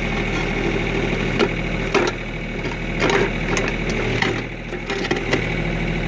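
John Deere compact tractor's diesel engine running steadily while it works the backhoe, with a few short scrapes and knocks as the steel bucket digs and scrapes dirt out of a trench.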